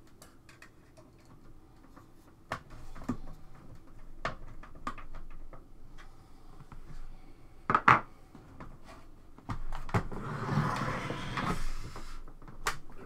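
Hands handling ribbon cables and plastic parts inside an opened computer case: scattered clicks and knocks, the loudest a quick double knock about eight seconds in, then a rustling scrape for a second or so.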